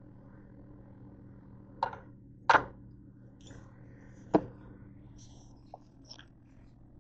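Three sharp knocks of a plastic slotted spoon against a cooking pot, the second the loudest, over a steady low hum; a couple of faint clicks follow near the end.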